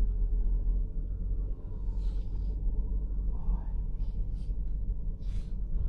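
Steady low rumble of a vehicle driving slowly, heard from inside the cabin, with a few brief faint hisses.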